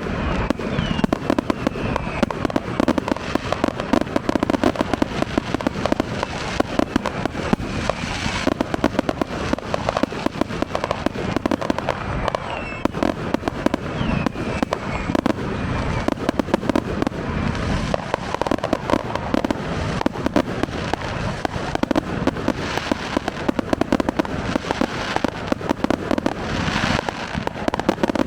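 Fireworks display: a dense, continuous barrage of rapid bangs and crackling.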